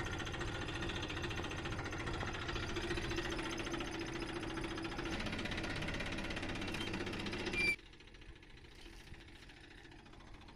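Massey Ferguson 241 DI tractor's three-cylinder diesel engine running with a steady, even clatter. A little over two-thirds of the way through, the sound drops abruptly to a much fainter engine sound.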